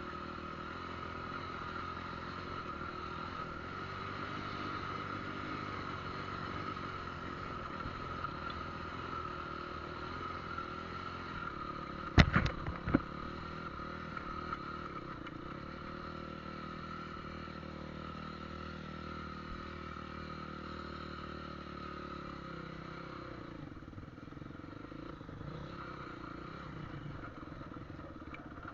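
Motorcycle engine running steadily under way, with a few sharp knocks about twelve seconds in.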